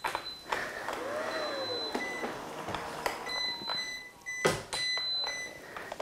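Robot vacuum cleaners under a chair on a hard wooden floor: repeated short, high electronic beeps from the robots over a faint whirr, with a few knocks, the loudest about four and a half seconds in.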